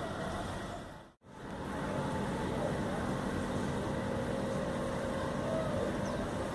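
Steady rain noise, a continuous hiss with no distinct events, that cuts out for a moment about a second in and then resumes.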